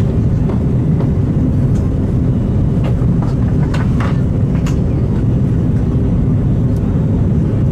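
Airbus A330-200 cabin noise heard from an economy seat: a loud, steady low rumble of the engines and airflow, with a few faint light rattles.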